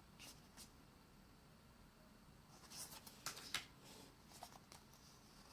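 Faint rustling and soft clicks of paper postcards being handled and turned over, with a small cluster of them about three seconds in.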